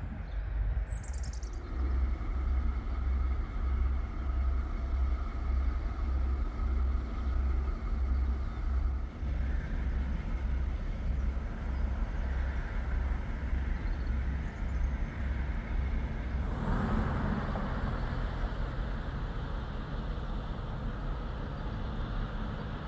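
Diesel locomotive engine running under power as the train passes, with a deep, rhythmic throb. About sixteen seconds in the throb gives way to a louder rush of noise.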